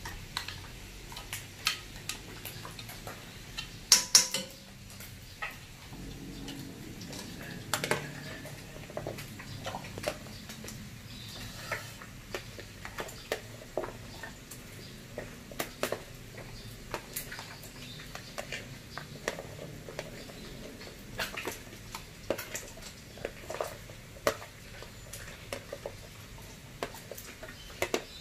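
Kitchen clatter: utensils and cookware knocking and clinking at irregular intervals, with the loudest knocks about four seconds in.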